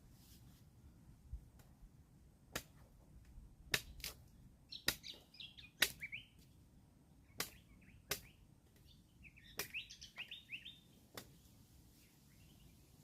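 Sharp knocks or taps, about nine of them at uneven intervals, with a small bird chirping in two short twittering runs.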